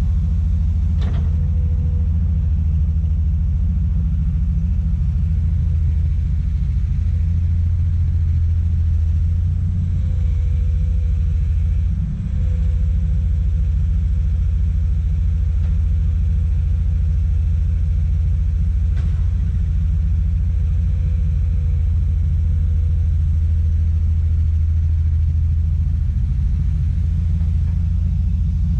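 Heavy diesel engine of a tracked excavator running steadily under work, a loud low rumble with a faint thin whine over it. A few faint clicks sound about a second in, in the middle and near the end.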